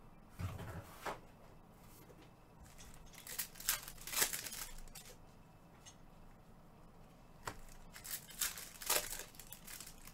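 Trading-card packs being ripped open, the wrappers tearing and crinkling in two main bursts, the first about three seconds in and the second near the end.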